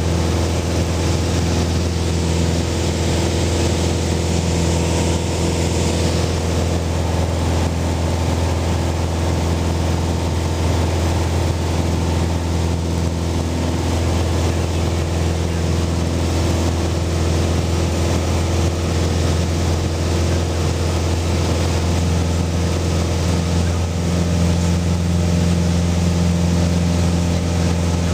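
Beechcraft Musketeer's single piston engine and propeller droning steadily in flight, heard from inside the cockpit: a low, even hum with steady higher tones over it.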